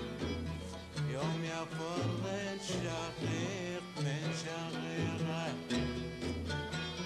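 An instrumental passage of Kuwaiti sawt music, led by the oud, with gliding melodic lines and sharp percussive strokes.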